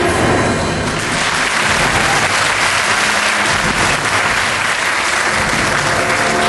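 Audience applauding steadily after the music drops away, with music starting again near the end.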